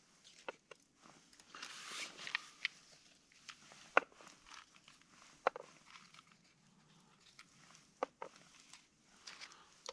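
Scattered sharp clicks and knocks of food, a knife and small bottles being handled on a wooden board, with a short burst of rustling about two seconds in. The sharpest click comes near the middle.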